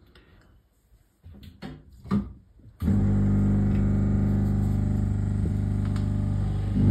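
A few soft handling knocks, then a hot air rework station's blower switches on about three seconds in and runs steadily with a low hum, blowing hot air onto the phone board to melt the solder under the new micro-USB charging jack.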